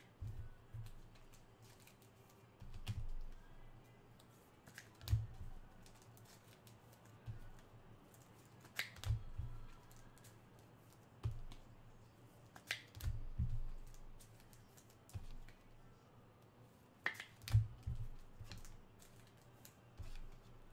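Scattered clicks of a computer keyboard and mouse, with a dozen or so dull knocks on the desk at uneven intervals, over a faint steady hiss of rain.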